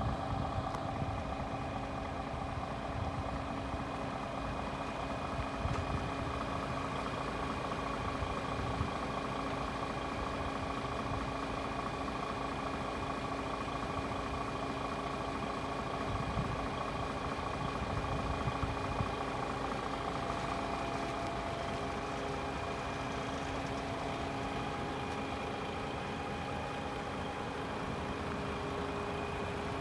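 Paccar 510 hp straight-six diesel engine of a DAF XF106 tractor unit idling steadily.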